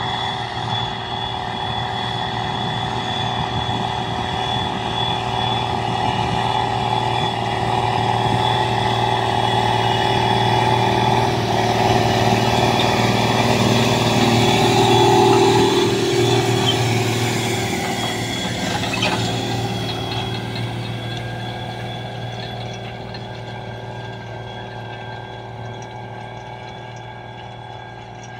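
Belarus MTZ 3022 tractor's diesel engine running steadily under load while pulling a tillage unit. It grows louder as the tractor approaches, is loudest about halfway through as it passes close, then fades as it moves away.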